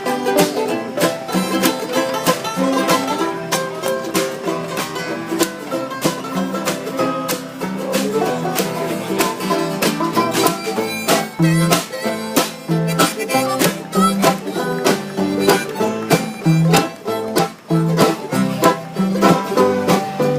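Bluegrass band playing an instrumental passage: rapid banjo and guitar picking over a regular plucked bass line.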